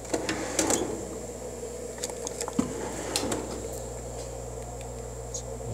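A steady low hum of shop machinery, with a few light metal clicks and taps as small lathe tooling is handled, most of them in the first second and around two to three seconds in.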